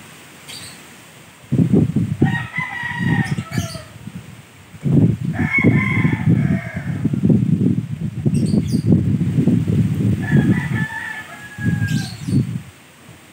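Strong typhoon wind gusting against the microphone in loud, low buffeting bursts. A rooster crows three times, about two, five and ten seconds in.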